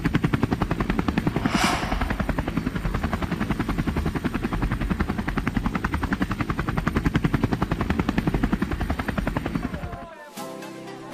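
Rapid, steady chopping of helicopter rotor blades, with a short whoosh about one and a half seconds in. It cuts off about ten seconds in, and music starts.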